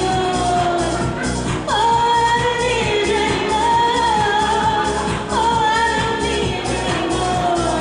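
A woman singing long held notes into a microphone over a recorded pop backing track with a steady beat.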